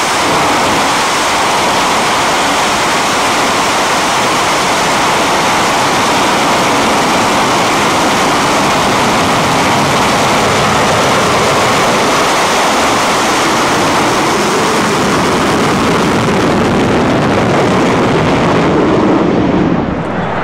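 English Electric Lightning's two Rolls-Royce Avon turbojets running at high power on the ground with reheat lit: a loud, steady jet roar. It drops and changes abruptly about a second before the end.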